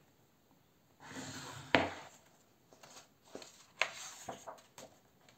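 Paper pages of a paperback colouring book being turned by hand: a rustle with a sharp snap of paper about a second and a half in, then several lighter flicks and taps of pages.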